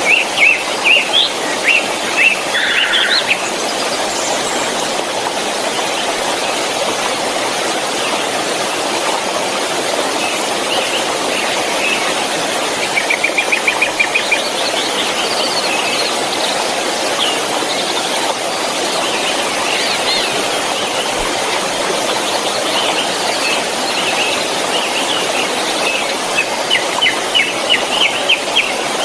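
Steady rushing of a waterfall with birds chirping over it: a run of quick chirps in the first few seconds, a fast trill about 13 seconds in, and more chirping near the end.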